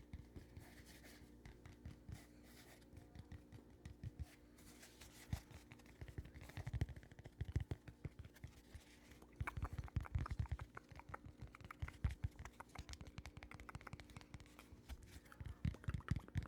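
Quick, irregular fingertip tapping and scratching close to the microphone, with soft low thuds, getting denser and louder about halfway through.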